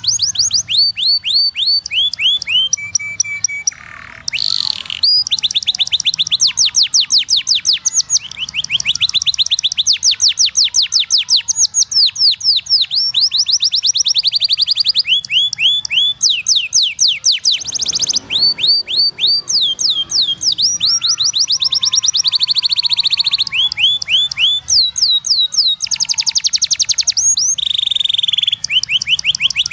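Domestic canary singing a long song of rapid trills: each run is a fast repeat of one high, falling note, and the bird switches to a new trill every second or two, with brief breaks about four seconds in and near the middle.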